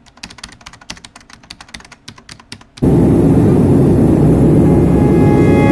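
Rapid, irregular computer keyboard typing clicks. About three seconds in they give way abruptly to a loud, steady low noise.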